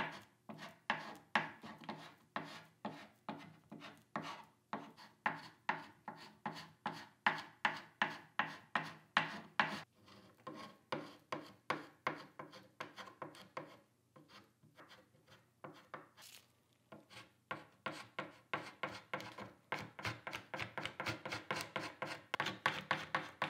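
Hand paint scraper pulled over and over along a wooden chair arm, scraping off stripper-softened paint in short rasping strokes, about two to three a second. The strokes go quieter for a few seconds in the middle and come faster near the end.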